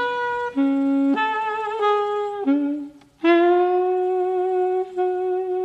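A single reed or wind instrument playing a slow melody of separate held notes, breaking off briefly a little before three seconds in, then holding one long note.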